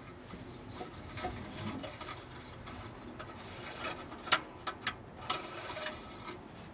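Rubbing and handling noises from the oil dipstick being pulled and wiped to check the engine oil level, with a few sharp clicks about four to five seconds in.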